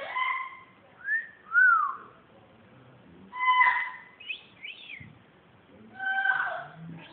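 A pet bird whistling and calling in short groups with pauses between: clipped pitched calls, and a couple of whistles that rise and fall, the loudest about a second and a half in.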